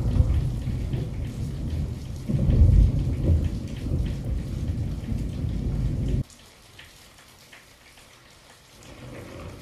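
Close thunder in a night thunderstorm, really loud, rumbling low and deep over falling rain. A fresh peal swells about two seconds in, then the rumble cuts off suddenly after about six seconds, leaving only faint rain.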